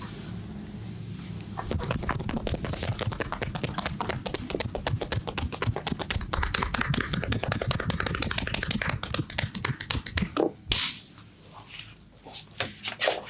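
Percussive hand massage: a barber's hands tap quickly and rhythmically on the client for about nine seconds, then stop, leaving a few scattered touches.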